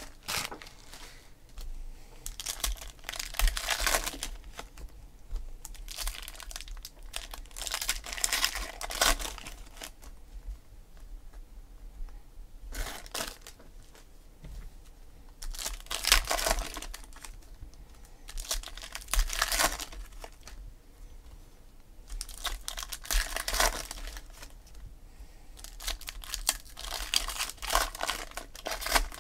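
Foil trading-card pack wrappers crinkling and tearing as packs are torn open and handled, in repeated bouts every few seconds.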